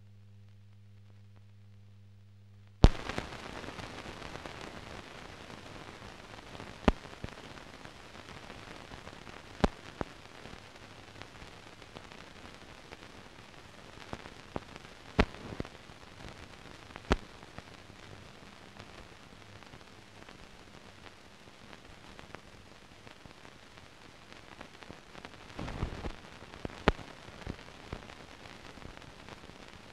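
A low steady hum for the first few seconds. Then, from a loud click about three seconds in, the even hiss and crackle of an old 1940s newsreel film soundtrack, with scattered sharp pops and no recorded sound over the footage.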